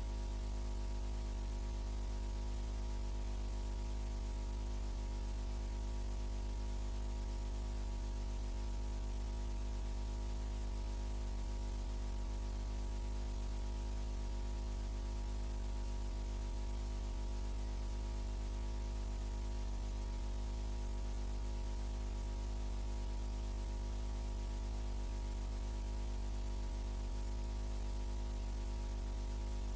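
Steady electrical mains hum with a stack of unchanging tones over a hiss of static, the same throughout. None of the drill's water jets or pump can be picked out.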